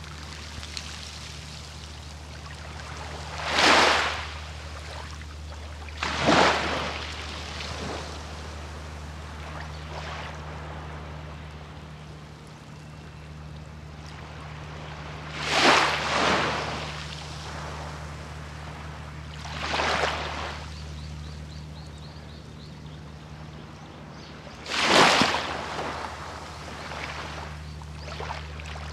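Small waves breaking and washing up on a sandy beach, a rush of surf swelling and fading every few seconds, over a steady low hum.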